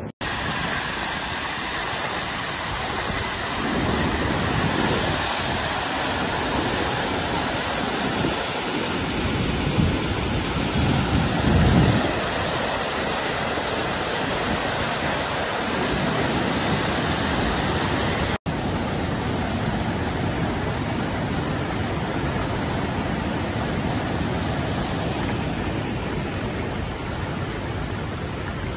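Rushing floodwater, a steady roar of water noise, swelling with deeper rumbling in the first half. It cuts out for an instant about two-thirds of the way through.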